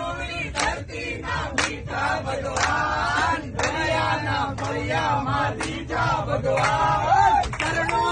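A group of people singing loudly together in chorus, clapping in time about once a second.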